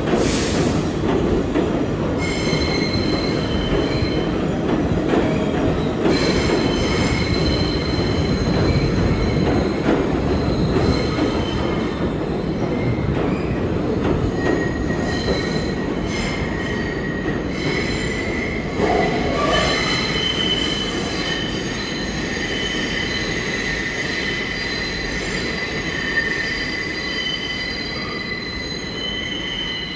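New York City subway train running through the station with a heavy steady rumble, its wheels squealing in several high, steady tones that set in about two seconds in and keep shifting. A brief hiss sounds right at the start.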